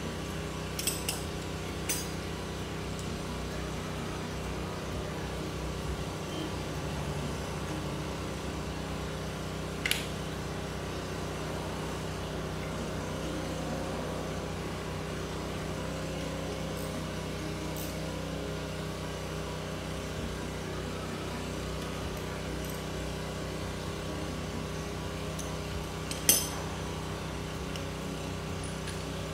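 Metal hand tools clinking a few times, the loudest clink near the end, over a steady low hum.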